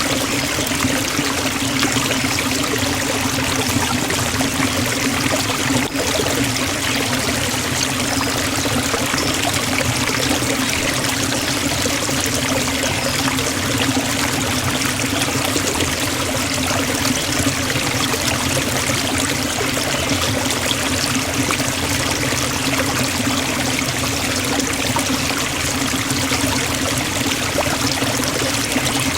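Forest waterfall: the steady, unbroken rush of falling water.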